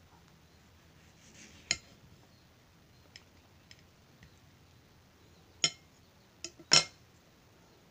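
Kitchen knife clinking against a ceramic plate as a mango is sliced on it: about four sharp clinks with a few faint ticks between, the loudest near the end.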